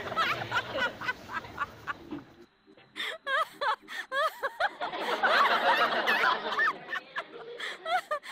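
Several people laughing and snickering in short bursts. The laughter drops out briefly about two and a half seconds in, then starts again and swells around the middle.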